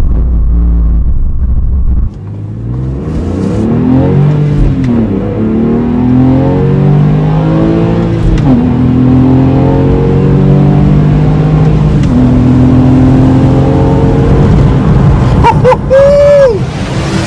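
Porsche 997's flat-six engine accelerating through the gears: its pitch climbs, drops at a shift partway through, then runs steadier at speed. Near the end the driver gives a brief whoop.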